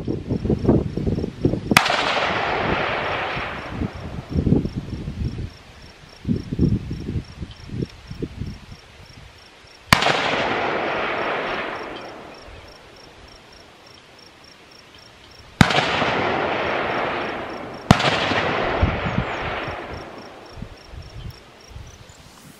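Four rifle shots fired down the range, unevenly spaced, each a sharp crack followed by a rolling echo that fades over about two seconds. Wind buffets the microphone in between.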